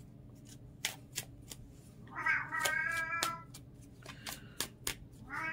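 A domestic cat meowing: one long meow about two seconds in, and another starting near the end. Light clicks and taps from a deck of tarot cards being handled sound between them.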